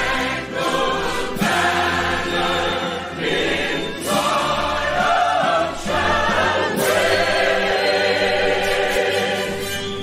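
Choral music: a choir singing with accompaniment.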